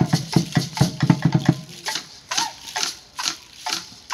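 Percussion for a traditional dance: a fast drumbeat with rattles that drops out about a second and a half in, leaving sharp rattle shakes about twice a second.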